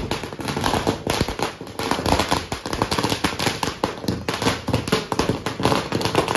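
A string of firecrackers going off on the ground: a rapid, uneven run of sharp bangs, many a second, without a break.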